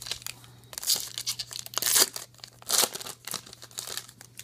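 Foil wrapper of a Topps Star Wars Galactic Files trading card pack being torn open and crinkled by hand. There are three loud rips, about a second apart, with smaller crinkles between them.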